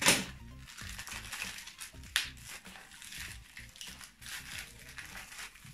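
Small plastic packaging bag crinkling and rustling as it is handled and opened, with a sharp crackle at the start and another about two seconds in.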